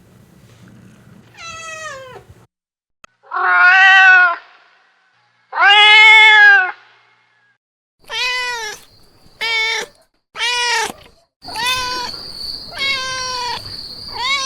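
Domestic cats meowing: about eight separate meows, two long loud drawn-out ones early, then shorter ones in quick succession, cut together with silent gaps between recordings. A steady high whine runs under the last few meows.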